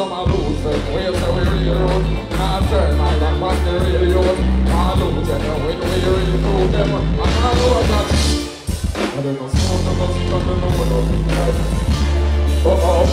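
Live dancehall performance: a backing band plays a heavy bass-driven rhythm while a male deejay sings into a microphone. The bass cuts out briefly about eight and a half seconds in, then comes back.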